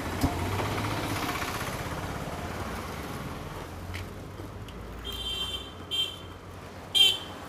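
Street traffic, a vehicle rumbling past during the first few seconds. Near the end come three short, shrill tones, like a horn or an alarm beep, and the last is the loudest.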